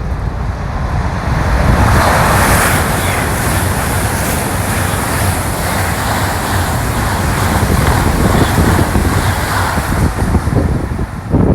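High-speed train passing through the station: a steady rushing noise that builds about a second and a half in and holds for several seconds, with wind buffeting the microphone.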